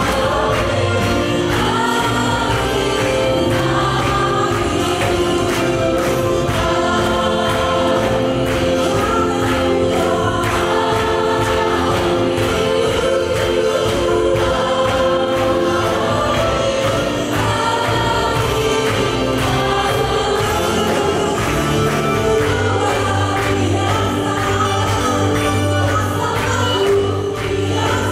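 Live worship band with drums, instruments and singing voices, playing a gospel song with a steady beat through the church's JBL speaker system.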